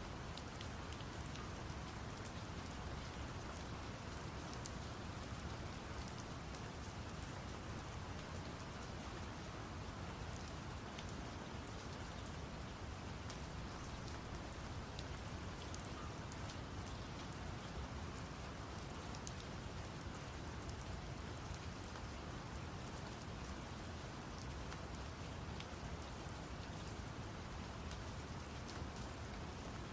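Steady rain with many small drop ticks, laid over a deep, even brown-noise rumble.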